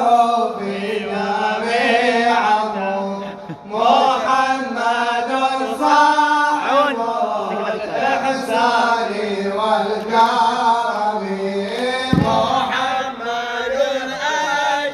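Male reciters chanting an Arabic mawlid jalwa in praise of the Prophet, in long drawn-out melodic lines with a brief pause about three and a half seconds in. A single low thump sounds near the end.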